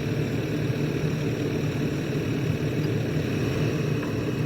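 Excavator's diesel engine running steadily, an even low drone.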